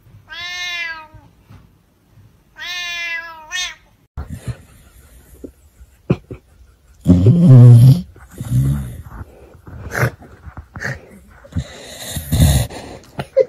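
A cat meowing twice, each meow a drawn-out call of about a second, while its head is being patted. After that come several loud, low, rough sounds, the loudest about seven seconds in.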